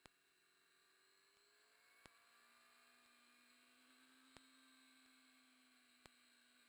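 Near silence: faint electronic hum and hiss from a recording with no working audio, broken by a faint click about every two seconds.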